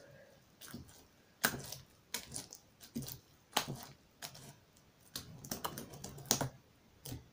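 Hands kneading, stretching and pressing sticky green slime on a wooden table, giving quick irregular clicks and wet pops as it sticks and peels away. The slime is still sticky and lumpy.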